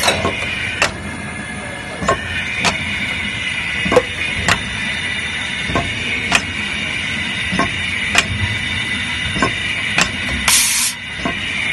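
Automatic plastic tube filling and sealing machine running: a steady mechanical whine with sharp metallic clicks about once or twice a second as its rotary table works, and a short hiss of about half a second near the end.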